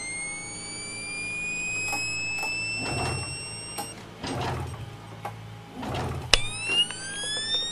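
A high mechanical whine rising slowly in pitch, which cuts off suddenly about four seconds in. A sharp click follows about six seconds in, and the rising whine starts again. Scattered clacks and a low hum run underneath.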